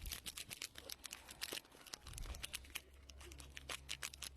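Plastic snack packaging crinkling and crackling as it is handled, a dense run of irregular sharp crackles.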